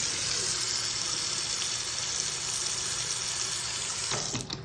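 Bathroom sink faucet running steadily into the basin, draining down a drain just cleared of a hair clog with drain cleaner; the water cuts off near the end.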